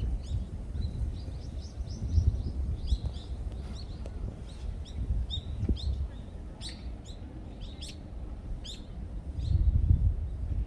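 Small birds chirping in many short, quick chirps, over a steady low rumble of wind on the microphone.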